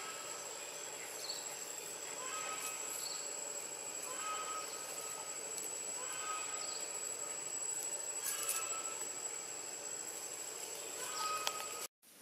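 Outdoor ambience: a steady high insect drone with short chirps repeating every second or so and a few faint clicks, dropping out briefly near the end.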